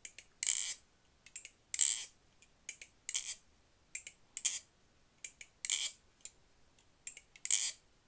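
Balisong (butterfly knife) being snapped in repeated ice pick tests: sharp metallic clacks of the handles and blade, a strong one about every second and a half with smaller clicks between. The test checks for blade play (tap) after the pivot screws have been tightened and the bushings oiled, and the knife is back to no tap.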